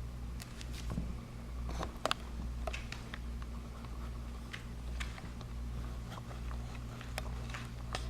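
A kitten playing: scattered light clicks, taps and scratches, a few sharper ones about two seconds in, over a steady low hum.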